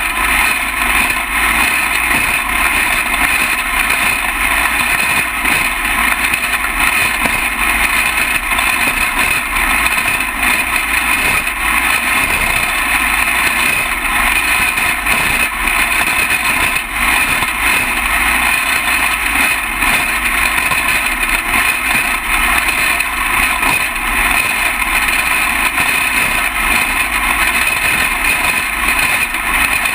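Small engine of a junior champ kart running steadily at racing speed, heard close up from a camera mounted on the kart.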